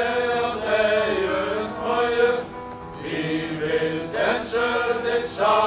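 Men's choir singing a Danish song to electric keyboard accompaniment, in held phrases with a short breath about halfway through.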